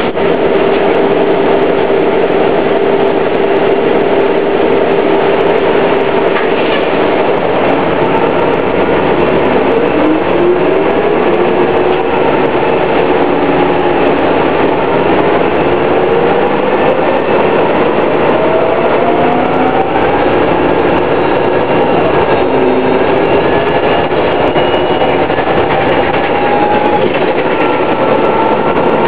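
Detroit Diesel Series 50 inline four-cylinder diesel and Allison B400R automatic transmission of a New Flyer D60 articulated bus running, with a whine that climbs in pitch several times as the bus gathers speed.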